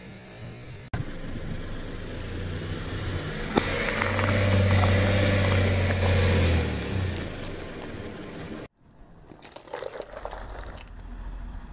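A car's engine running, its note swelling and rising then falling back as the car creeps forward. After an abrupt cut comes quieter crackling and crunching as a tyre crushes a durian's spiky husk and flesh.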